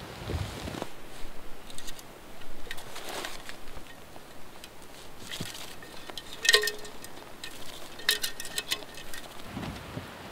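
Metal stovepipe sections clinking and scraping as they are handled, with one sharp ringing clink about six and a half seconds in. Soft swishing noises come and go between the clinks.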